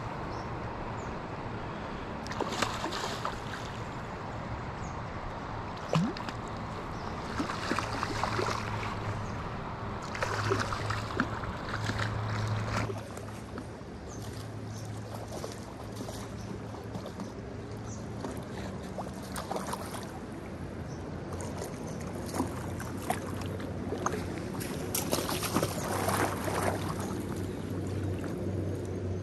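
Shallow river water flowing, with bursts of splashing and sloshing every few seconds while a hooked trout is played in close by a wading angler.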